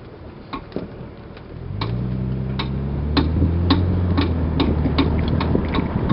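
Repeated clicking from the left rear of a 2001 Lexus IS300 while driving, about two sharp clicks a second, a fault the owner cannot trace. From about two seconds in, the engine note rises and grows louder under the clicks as the car speeds up.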